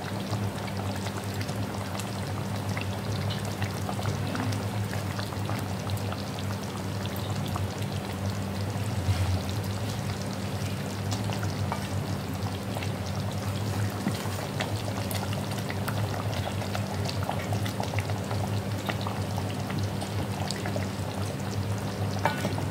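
Thick lentil-dumpling gravy bubbling at a boil in a stainless steel pot, with a ladle stirring and scraping through it as the dumplings are turned over; a steady low hum runs underneath.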